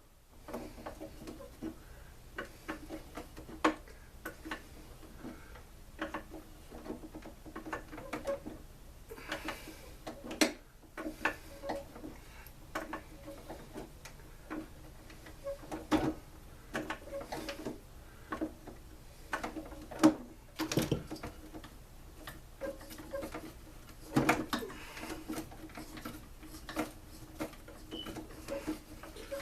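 Irregular metallic clicks and taps of hand tools working at a stuck cylinder head bolt on a two-stroke blower engine, over a faint steady hum.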